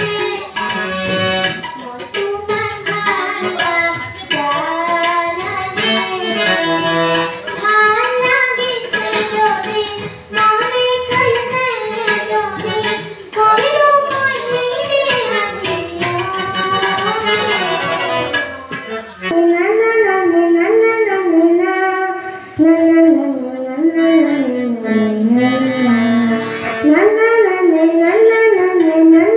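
A young girl singing into a microphone, accompanied by harmonium and tabla. About two-thirds of the way in, the recording cuts abruptly to a second girl singing with the same accompaniment.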